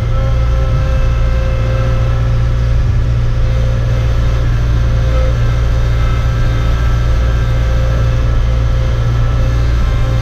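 A vehicle engine running steadily at an even speed: a loud low drone with a few steady higher tones, no revving.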